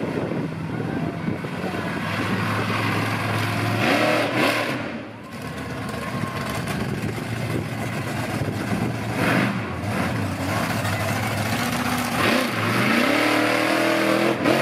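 Monster truck engine revving hard, its pitch rising and falling several times as the truck drives across the dirt, then climbing sharply near the end as the truck lifts its front wheels into a wheelie.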